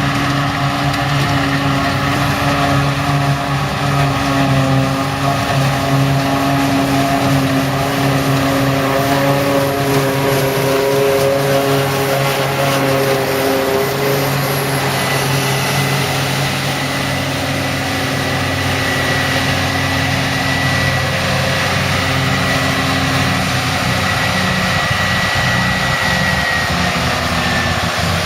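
Heavy diesel farm machinery of a silage harvesting operation running steadily under load, with a high whine joining about halfway through.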